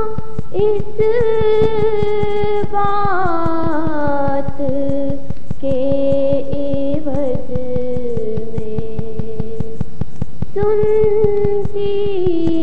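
Female voice singing an Urdu nazm in long held notes with small ornaments. The melody steps down from a high note to lower ones over several seconds, then starts high again about ten and a half seconds in.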